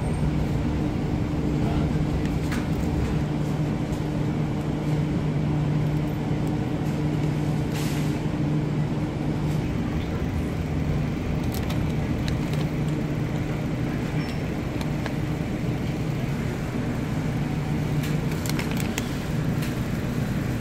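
Steady low hum of refrigerated grocery display cases, with a few short crackles of plastic packaging being handled.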